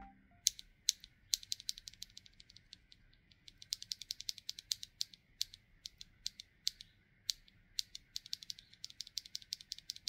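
Small, sharp mechanical clicks in fast, irregular runs with short gaps, a ratchet-like clicking from keyboard parts being worked by hand. The clicks are sparse at first and come in dense runs about midway and again near the end.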